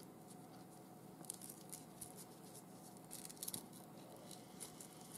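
Faint crackling and rustling of masking tape being pulled off its roll and wrapped around the end of a paracord braid, a scattering of soft ticks with a small cluster around the middle.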